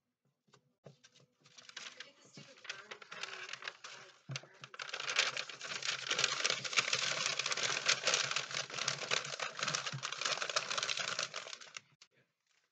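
Newspaper liner being crumpled up by hand and pulled out of a plastic tub: a dense crackling and rustling that starts faintly, grows louder about four seconds in and stops just before the end.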